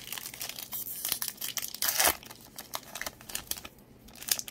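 Foil wrapper of a Pokémon card booster pack crinkling as it is torn open by hand, with a louder rip about two seconds in.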